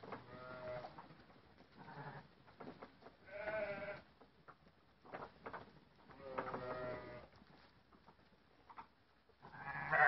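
Sheep bleating: about five calls spread a second or two apart, some lasting close to a second, with light knocks in between.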